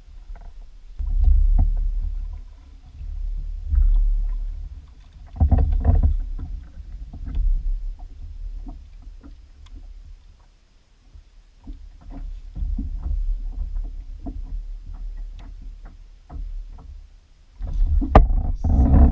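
On-board sounds of a Native Slayer Propel 10 fishing kayak on the water: uneven low rumbling swells with many small knocks and clicks. Guitar music comes in near the end.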